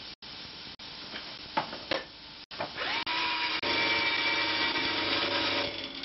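A few light knocks of handling, then an electric drill spins up about three seconds in and runs steadily with a whine, driving a wire brush round inside the bottom bracket shell of a bicycle-type frame to scour out the threads.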